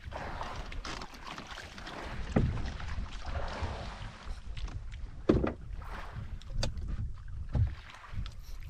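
Wind rumbling on the microphone and water noise on a small fishing boat at sea, broken by a few sharp knocks.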